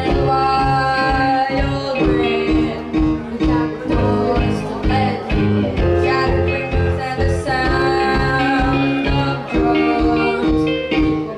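A young rock band playing live with a steady drum beat, electric guitar, electric bass and keyboard, and a voice singing over the band.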